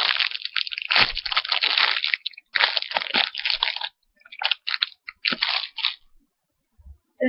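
A foam Hello Kitty macaron squishy being squeezed repeatedly close to the microphone, giving a crackling, crunchy noise in three bouts, with near silence in the last second or so.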